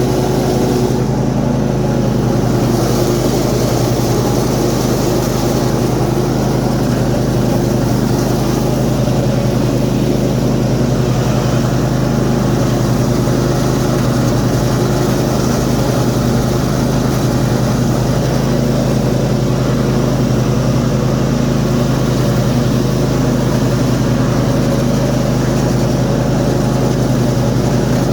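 Simplicity ZT1500 zero-turn mower's 23 hp Briggs & Stratton engine running steadily with the 46-inch deck's blades engaged, mowing grass; the deck runs smooth.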